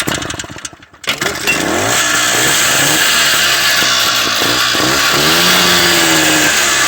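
A 1985 Kawasaki motorcycle engine catches about a second in after some rough firing. It then runs, revved up and down with its pitch rising and falling.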